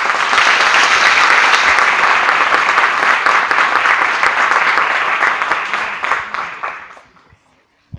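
Audience applauding, a dense clapping that dies away about seven seconds in.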